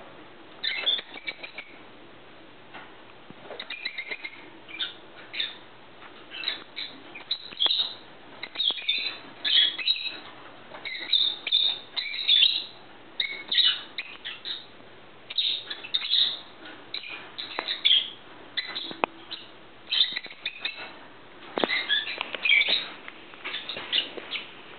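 Pet budgerigars chirping and chattering in a cage: a busy, continuous run of short, high chirps, with scattered clicks.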